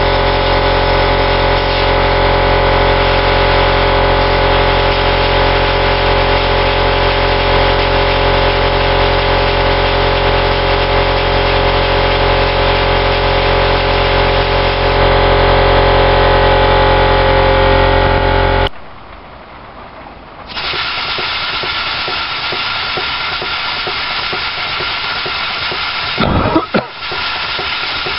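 An air compressor running with a steady, many-toned hum while a small compressed-air Dake engine spins on its supply. About two-thirds through the hum stops abruptly, and the engine runs on with a steady air hiss, broken near the end by one short, loud swish.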